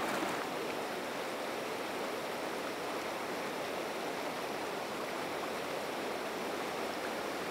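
Shallow river rapids rushing steadily over boulders, a constant even wash of water.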